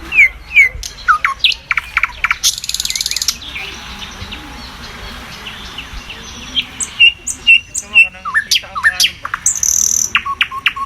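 Birds chirping: a run of quick, downward-sweeping chirps, broken by a high buzzy trill about two and a half seconds in and another near the end.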